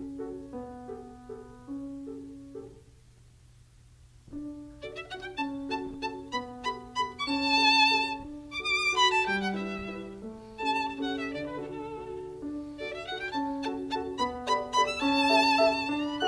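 Background music led by a violin, with a brief pause about three seconds in before it resumes fuller.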